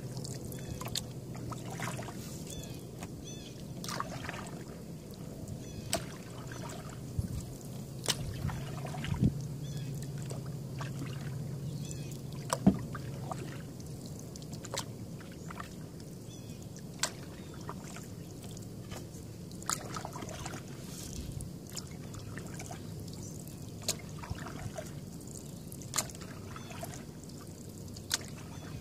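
Canoe being paddled on calm water: water trickling and dripping off the paddle, with sharp knocks every second or two, the loudest about halfway through.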